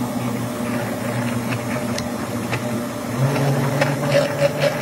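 Countertop blender motor running, blending a mamey fruit shake with ice, its hum stepping up in pitch about three seconds in as the load eases. Pieces of ice tick and rattle against the glass jar, more often near the end.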